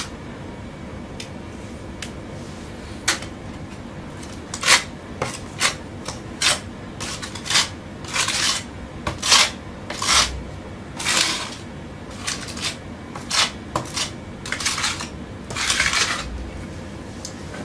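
Putty knife spreading wall putty onto a plaster wall: a run of irregular short scraping strokes, some drawn out to about half a second, starting a few seconds in.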